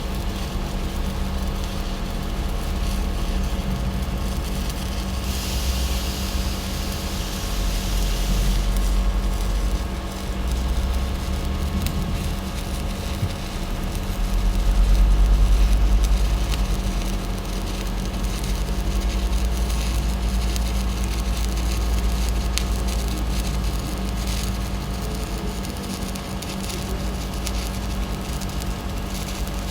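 Stick (shielded metal arc) welding on pipe: the arc crackles and hisses steadily over the low hum of the welding machine. A brighter hiss comes in a few seconds in and lasts about three seconds, and the low hum swells briefly about halfway through.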